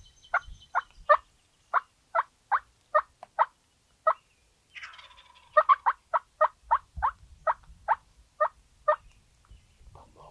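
Wild turkey yelping: two runs of sharp, evenly spaced yelps, about three a second, with a short raspy call between them about five seconds in.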